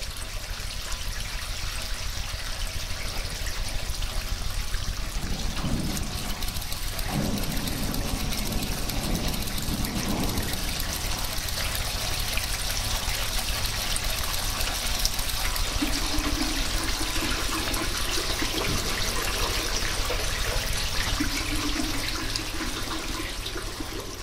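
Steady rushing water, with faint low tones swelling in and out several times.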